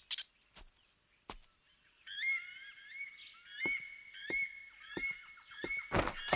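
Forest ambience in an animated soundtrack: sharp clicks, then a high chirping animal call repeated about twice a second, with a louder burst near the end.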